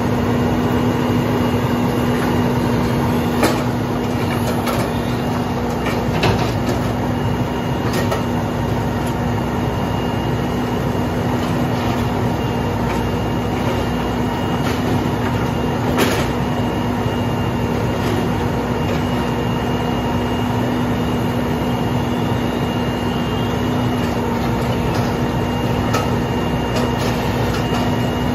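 Grapple truck's engine and hydraulic pump running steadily to work the knuckle-boom grapple crane, a constant hum with a steady high whine over it. A few sharp clunks as the grapple handles bulky furniture, the clearest about three and a half seconds and sixteen seconds in.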